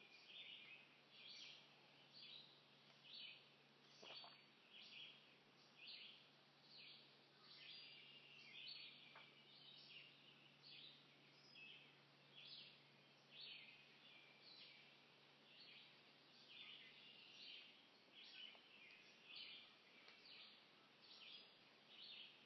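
Faint outdoor ambience of birds chirping, short high calls repeating about once a second, over a low steady hum that fades out about three-quarters of the way through.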